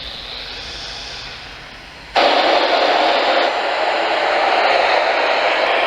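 Radio static hiss from a receiver whose station has gone off the air. The hiss jumps suddenly louder about two seconds in and then holds steady.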